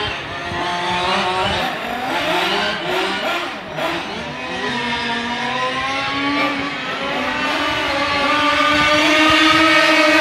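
Radio-controlled Formula 1 model cars racing, their motors whining and changing pitch up and down as they speed up and slow down. Several cars are heard at once, getting louder near the end.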